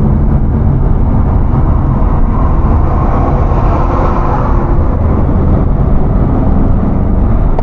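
VAZ-2110 car being driven: the engine runs steadily under a layer of road and tyre noise, which swells for a couple of seconds in the middle.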